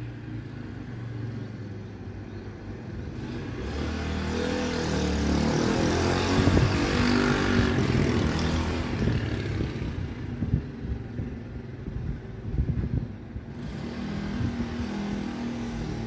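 A motor vehicle passing by: its engine builds to a peak about seven seconds in and then fades away, and a smaller swell of engine sound follows near the end.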